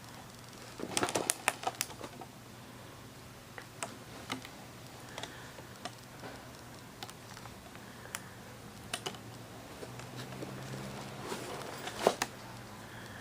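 Irregular light clicks and taps from hands handling the packaging of a mini ratchet and bit set, with a quick cluster about a second in and another near the end.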